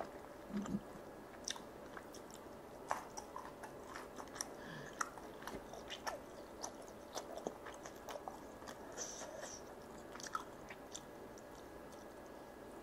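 A person chewing and biting sauced charcoal-grilled chicken pulled off a wooden skewer, with many small irregular mouth clicks.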